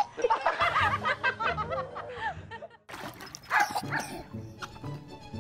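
A baby's high-pitched squealing laughter over background music. It stops abruptly about three seconds in, and quieter music follows.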